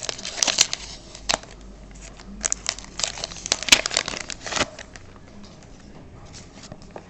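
Foil wrapper of a hockey card pack being torn open and crinkled by hand. A run of sharp crackles lasts about five seconds, then gives way to faint handling.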